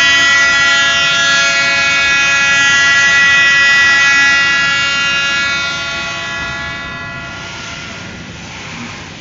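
Freight train's locomotive horn, from GM GR12W 6628, sounding one long steady multi-tone blast that fades out about seven seconds in. Underneath, the loaded flatcars keep rolling past on the rails.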